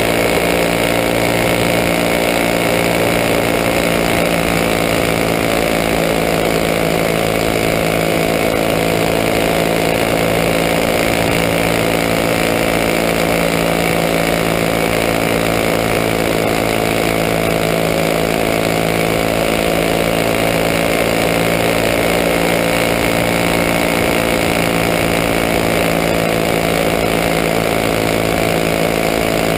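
Champ kart's engine running hard at near-constant high revs, close up from an onboard camera mounted on the kart, its pitch holding almost level lap after lap.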